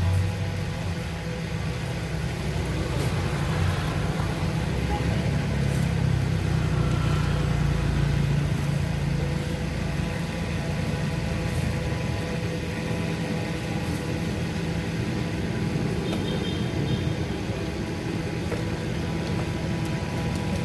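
A motor vehicle's engine running steadily with a continuous low hum.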